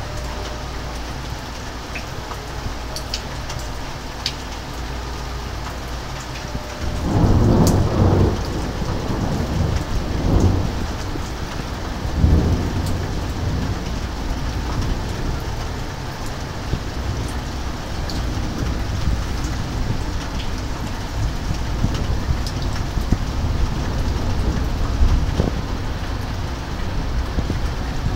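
Steady rain falling in a thunderstorm. About seven seconds in, thunder breaks loudly and rolls on in several swells for about six seconds before fading back under the rain.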